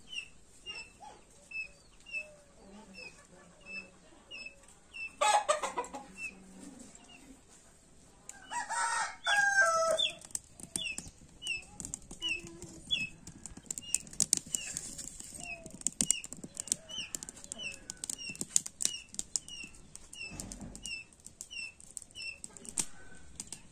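A small bird chirping over and over, a short falling peep about two to three times a second without a break. A louder noisy burst comes about five seconds in, and a loud harsh call near nine seconds.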